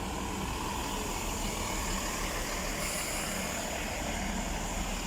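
A pair of Class 165 diesel multiple units standing at the platform with their underfloor diesel engines idling: a steady low hum under a broad hiss.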